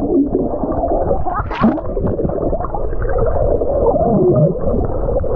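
Underwater sound picked up by a submerged action camera: a steady, muffled rumble of churning water and bubbles, with wavering muffled voices of swimmers squealing under the surface.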